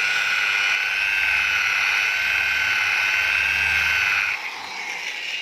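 Electric rotary car polisher with a wool pad running on car paint with cutting compound: a steady high motor whine. About four seconds in, the whine's pitch falls away and it gets quieter.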